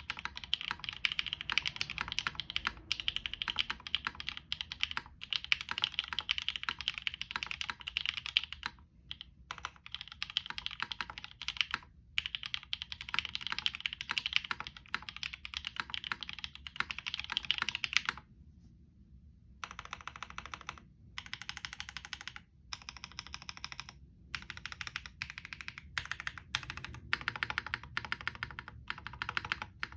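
Typing on a Monokei Kei R2 mechanical keyboard with Novelkey Cream linear switches on a POM plate, GMK keycaps and an aluminum bottom. There is fast, continuous typing for about eighteen seconds, a short pause, then typing in shorter bursts with brief gaps.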